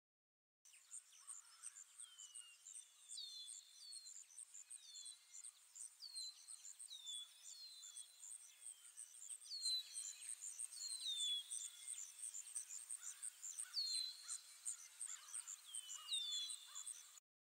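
Faint birdsong ambience: short whistled calls sliding downward, repeated every second or so, over a high, fast, even chirping. It starts abruptly about half a second in and cuts off just before the end.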